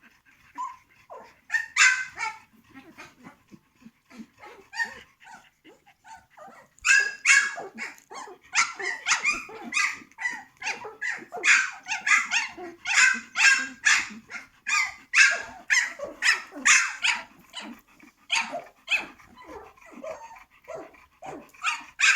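Young puppies, about two and a half weeks old, yelping and squealing in many short high-pitched cries. The cries come sparsely at first and follow one another closely from about seven seconds in.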